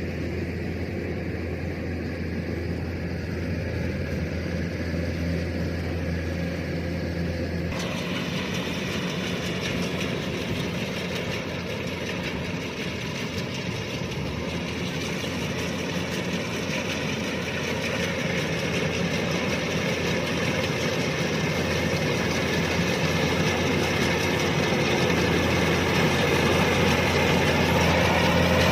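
Kubota DC-105X combine harvester's diesel engine running steadily. A brighter mechanical clatter joins abruptly about eight seconds in, and the sound grows louder toward the end.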